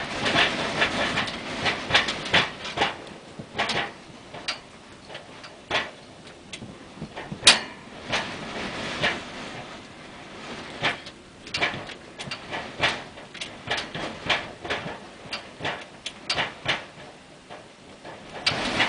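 A loose piece of house siding flapping and banging in storm wind: irregular clattering knocks, sometimes several a second, the sharpest about seven and a half seconds in. The resident takes it for siding that the wind has torn loose.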